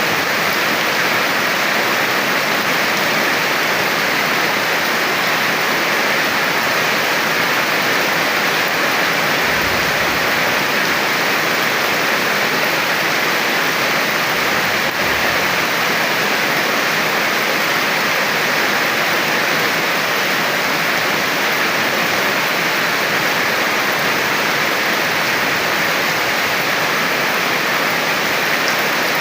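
Steady rain, an even dense hiss of raindrops with no break.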